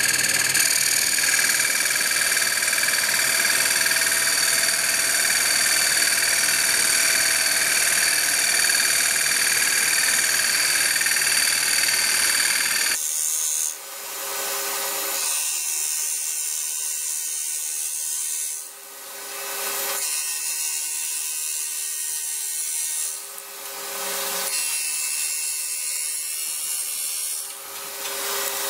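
CNC lathe turning a wooden disk: the spindle runs with a steady whine under the noise of the tool cutting wood. About halfway through the sound switches to four-times-speed playback, thinner in tone, with the cutting noise dropping away briefly every four to five seconds.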